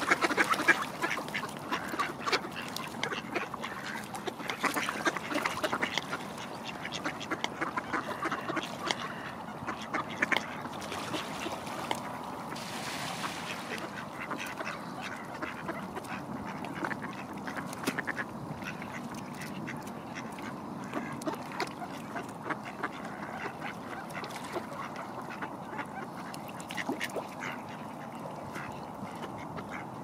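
A flock of mallards quacking, with many overlapping calls. The calling is busiest in the first ten seconds or so and thins out after that.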